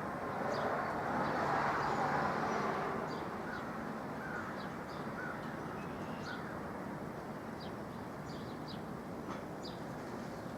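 Wind blowing steadily, swelling into a gust about a second in and easing off by three seconds, with faint short bird calls scattered through.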